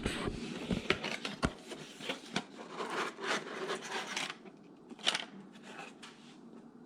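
Packaging being handled as a CPU box and its stock cooler are unpacked: rustling and scraping with several sharp clicks, dying away about four seconds in, with one more short scrape about a second later.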